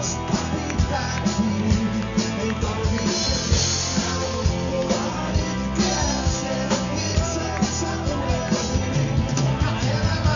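Live rock band playing electric guitars, keyboard and drum kit with a steady beat, and a man singing over it.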